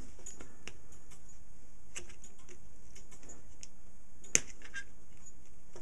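Small, irregular clicks and light scraping of a small screwdriver being worked into a hole drilled in the end of a wooden dowel, with one sharper click late on.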